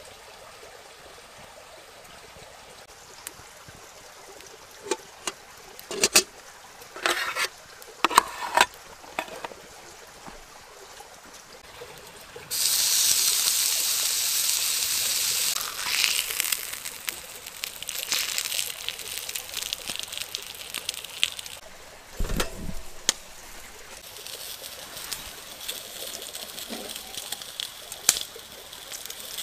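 A block of bacon sizzling on the hot grill of a small wood-burning box stove. It sets off suddenly about halfway through with a loud hiss that holds for about three seconds, then eases into fainter, irregular sizzling and crackling. Before it come a few scattered clicks and knocks, and later a single low thump.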